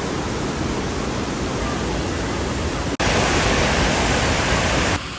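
Steady, loud rushing noise without a pitch, cut off abruptly about three seconds in and replaced by a louder, brighter stretch of the same kind of noise, which cuts back down near the end.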